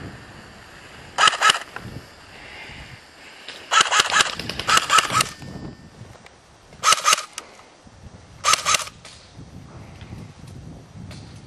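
Airsoft rifle firing five short full-auto bursts of rapid clicking shots, each about half a second long.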